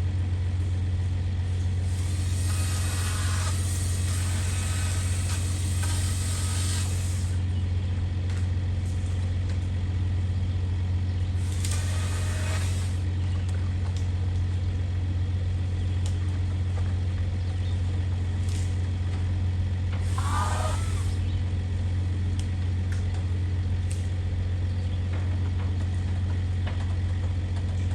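A motor running steadily with a low, even drone, with a few louder spells of rushing hiss over it.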